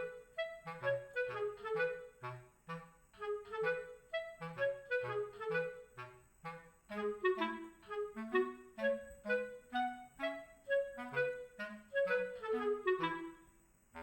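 Background music: a light tune of short, quick melody notes in a woodwind-like voice over a bass line, pausing briefly near the end.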